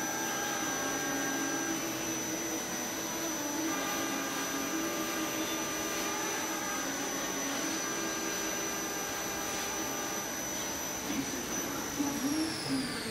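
CNC machine spindle running at speed with a steady high whine over a broad machine hiss, plus mid-pitched tones that start and stop. Near the end the whine falls in pitch as the spindle spins down.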